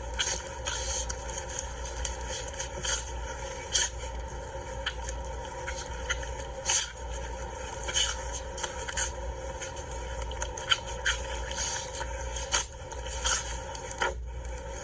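Short, sharp sneezes and snorts from an agitated animal, coming irregularly, sometimes several in quick succession.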